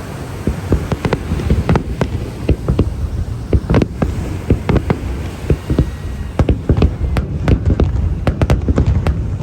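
Japanese aerial fireworks shells bursting in a rapid, irregular string of sharp bangs, several a second, over a continuous low rumble.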